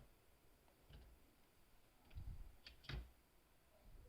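Faint clicks and a few soft knocks from a plastic toy crane and its claw being handled. The sharpest click, with a thump, comes about three seconds in.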